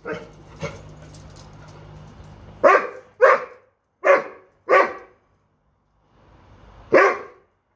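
A Doberman barks five short, loud barks, four close together and one a couple of seconds later, frustrated at a bone stuck out of reach under a dog cot. The barks follow a couple of seconds of rustling.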